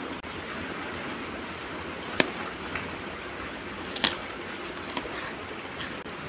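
Close-up eating sounds over a steady hiss: a few sharp crunchy bites and clicks of toasted bread being bitten and chewed, the loudest crack about two seconds in and another bite about four seconds in.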